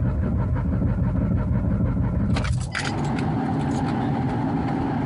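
A 1993 Ford Taurus SHO's 3.0-litre V6 turning over steadily on the starter without catching, with a slight rattle that the owner puts down to a fuel tank he probably left loose when changing the fuel pump, or a loose exhaust. There is a short burst of clicks about two and a half seconds in.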